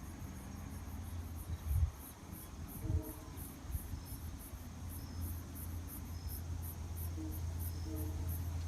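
Insects chirping in a fast high-pitched pulse, about three or four chirps a second, over a thin steady high whine and a low steady rumble.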